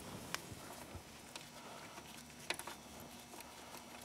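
Faint, steady patter of engine oil draining from the ATV's oil tank and crankcase into a drain pan, with a few light clicks, the sharpest about two and a half seconds in.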